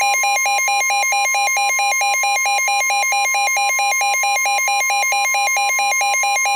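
NOAA Weather Radio's steady 1050 Hz warning alert tone, sounding before a severe thunderstorm warning is read. Over it, a weather radio receiver's own alarm warbles between two pitches, about four times a second.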